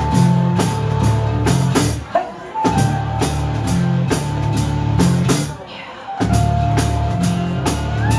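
Live rock band playing the instrumental intro of a song: drum kit keeping a steady beat under bass and guitar. The band breaks off briefly about two seconds in and again near six seconds before coming back in.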